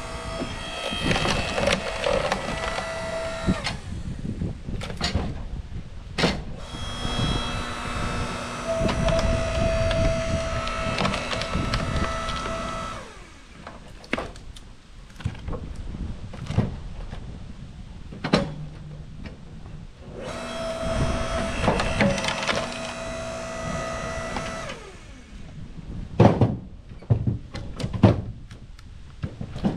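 A small petrol engine running hard in three long spells, each dropping in pitch as it eases off, used on a broken maple log. Sharp wooden knocks and cracks come between the spells, with a cluster of them near the end.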